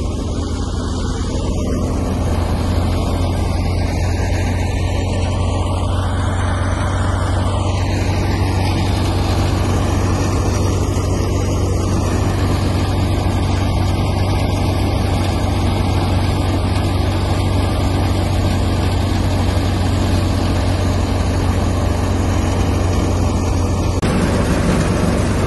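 Tractor-driven wheat thresher running steadily while threshing, a loud constant low drone under an even rushing noise as chaff and straw dust blow out of it.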